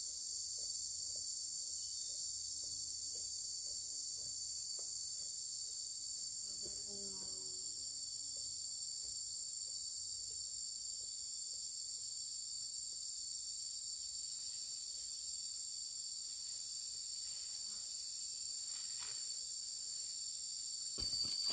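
Steady, high-pitched chorus of insects chirring without a break.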